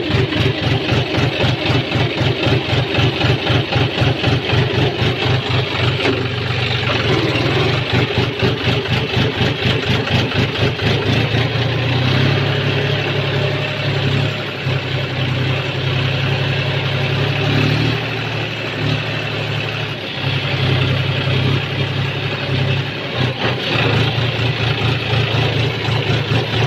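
John Deere tractor's diesel engine running as the tractor drives through mud. There is a fast pulsing beat for the first several seconds, then a steadier low drone.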